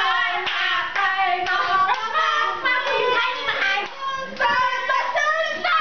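Several young women laughing loudly and shrieking, with hands clapping.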